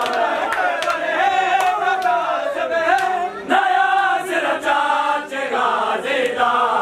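A crowd of men chanting a noha in chorus while beating their chests in matam, the sharp slaps of the hands landing about twice a second in time with the chant.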